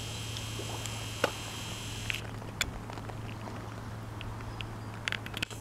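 A steady low hum with a faint background hiss and a few short, faint ticks scattered through it.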